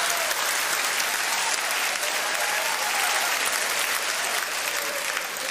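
Large audience applauding steadily after a punchline, easing off slightly near the end.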